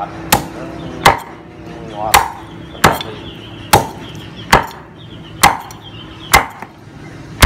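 Hand-forged Phaluong cleaver chopping Muscovy duck, meat and bone, against a chopping board: a sharp chop about once a second, nine in all.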